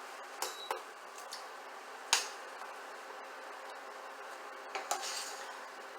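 Cooking sounds from a stovetop pan of noodles: a few light clicks of a utensil, with a sharper tap about two seconds in and a softer rustle near the end, over a steady hiss.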